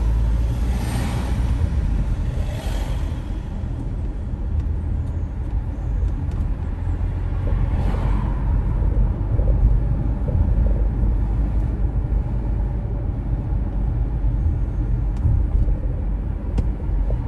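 Car driving on city streets: a steady low rumble of engine and road noise, with brief louder swishes about one, three and eight seconds in.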